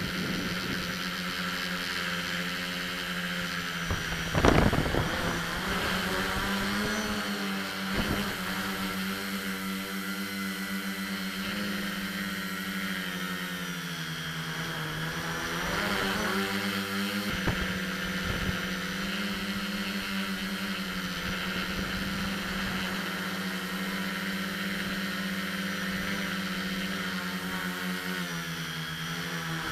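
Multirotor drone's electric motors and propellers whining, heard from its onboard camera, the pitch rising and falling as the throttle changes in flight. A brief thump about four and a half seconds in.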